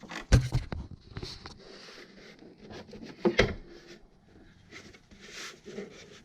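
A part being fitted by hand onto the engine and pressed down into its rubber grommets: two sharp knocks, one near the start and one about three and a half seconds in, with scraping and rubbing between.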